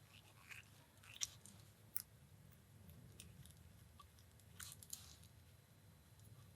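Faint, scattered small metal clicks of a lock and its parts being handled and taken apart with hand tools, a few sharp ticks against near silence.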